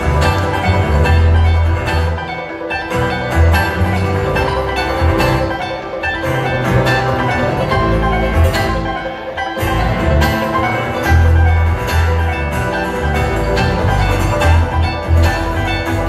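Live band playing loud amplified music, heard from within the audience: plucked-string melody over heavy bass and drums.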